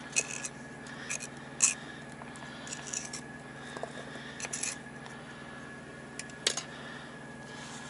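A metal fork scraping and tapping on a plastic cutting board as chunks of raw potato are pushed off into a steel pot: a handful of scattered light clicks and scrapes over a steady background hum.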